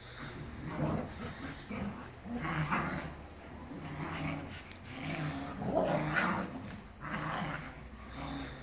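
Dogs growling in play while tugging at a toy: a string of short, breathy growls, one every second or so.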